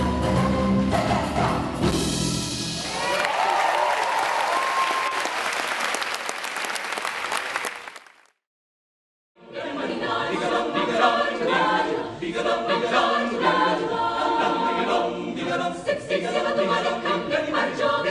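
A group of singers singing together over backing music, ending on a held note as audience applause and cheering rise and then fade out. After a second of silence, several people are talking at once in a noisy room.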